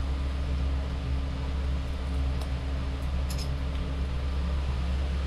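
Murukku dough frying in hot oil in a kadai: a steady sizzle over a low, steady hum.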